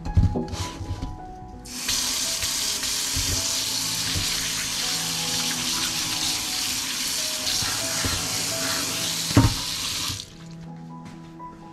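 Kitchen tap running, water splashing into a stainless steel sink and mesh strainer while a lemon is rinsed of the salt used to scrub off its wax. A few knocks at the start, then the water comes on about two seconds in. There is a sharp knock near the end, and the flow cuts off just after it.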